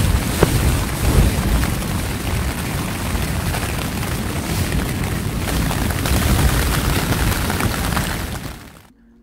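Strong wind battering a backpacking tent from inside, the fabric flapping and shaking over a heavy buffeting rumble, with a few sharp snaps. It cuts off near the end.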